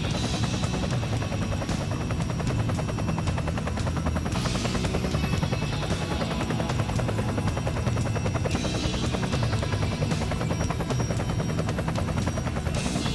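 Walkera Dragonfly 4F200LM RC helicopter running steadily: its electric motor and rotor make a fast, even chop.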